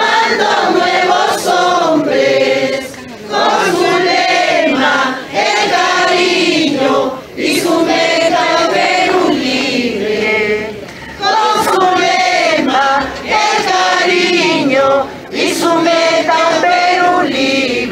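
A crowd of women and men singing a song together in Spanish, in phrases a second or two long with brief breaks between them.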